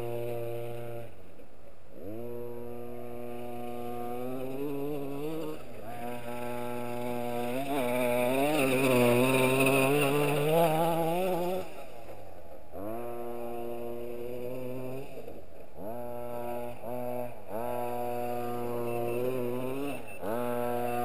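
26cc two-stroke petrol engine of a 1/5-scale Himoto RC truck running at high revs, its pitch dipping and climbing back again several times. It is loudest and wavers most about eight to eleven seconds in, as the truck passes close.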